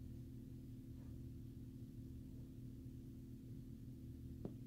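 A steady low hum made of several fixed tones, with a faint click about a second in and a sharper one near the end.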